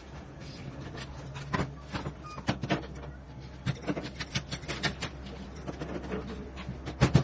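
Hand tools clicking and knocking irregularly against metal fittings over a steady low hum, with a cluster of louder knocks near the end.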